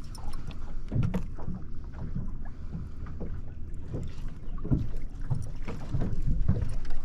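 Wind buffeting the microphone and water lapping at a small fishing boat, with irregular knocks and thumps of things moving in the boat.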